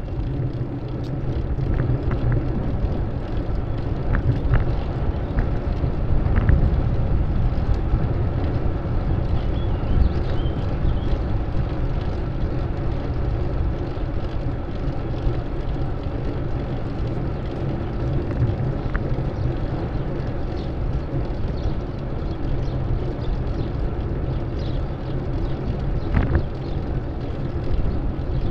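Steady low rumble of wind buffeting the microphone and city street traffic, heard from a moving bicycle, with a few faint clicks scattered through.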